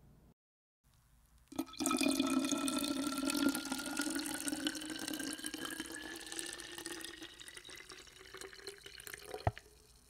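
Water running into a vessel, its ringing pitch rising steadily as the vessel fills. It starts with a click about a second and a half in, fades a little, and stops with a short knock near the end.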